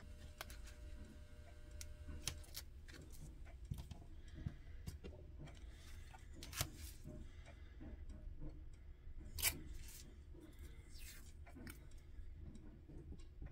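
Washi tape being handled on a paper planner page: soft taps and small clicks as the tape roll is unrolled, positioned and pressed down, with a few sharper clicks, the loudest about six and a half and nine and a half seconds in. A low steady hum lies beneath from a clothes dryer running in another room.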